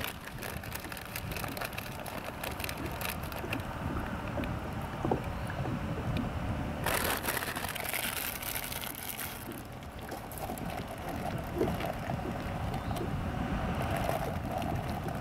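Wind rumbling on the microphone while small waves lap and tick against a kayak hull; about seven seconds in, a louder hiss lasts for a couple of seconds.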